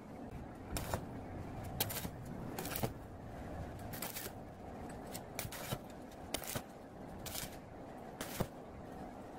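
Stick (arc) welder tack-welding a steel tube frame: about nine short bursts of arc crackle as the electrode is struck and held on the joint, each lasting well under a second.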